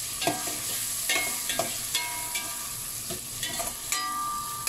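Vegetables frying in hot oil in a pan, sizzling steadily while a ladle stirs them, with repeated clinks and scrapes of the ladle against the pan. Some clinks leave a short ring.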